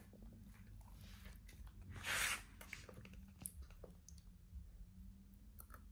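A baby eating with a metal spoon from a plastic cup: faint wet chewing and lip sounds with small scattered clicks, and one short louder hiss about two seconds in.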